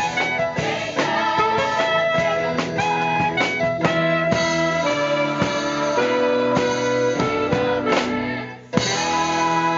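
Live musical-theatre pit band, with saxophone and keyboard, accompanying a children's chorus singing. The music thins out and dips just before the end, then comes back in sharply on a loud hit.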